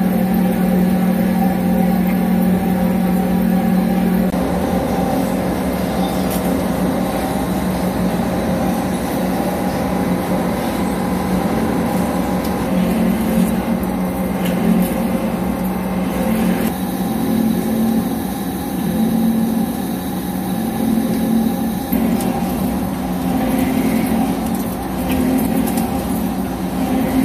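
CNC vertical lathe turning a large SS400 steel ring with a carbide insert: a steady low machine hum with the continuous noise of the cut over it.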